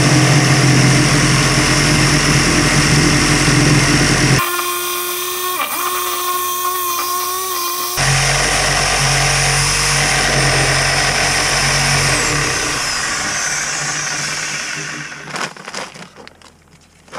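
Reciprocating saw cutting through an old cast iron sewer pipe, running steadily under load. About four seconds in its sound changes for a few seconds, thinner with a steady whine, and then the full cutting sound returns. It winds down and stops near the end.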